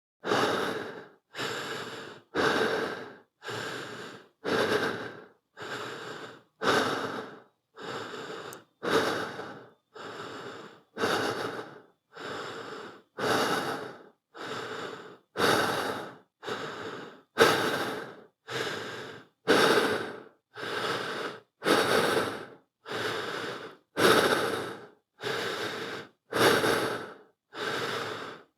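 Slow human breathing: a steady, even rhythm of in-breaths and out-breaths, each lasting about a second, with short silent gaps between them.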